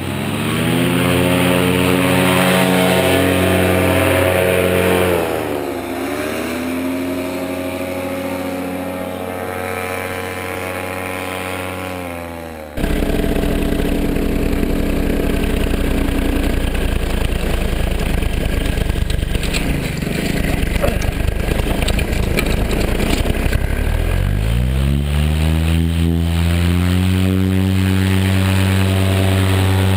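Paramotor engine and propeller running hard for launch, easing off and coming back up about five seconds in. About thirteen seconds in the sound changes abruptly to the engine under rushing wind, and near the end its pitch rises as the throttle is opened again.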